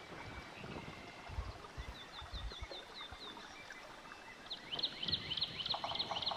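Birds calling in forest: runs of short, high chirps repeated several times a second, growing louder in the last two seconds. A few low thuds sound under them.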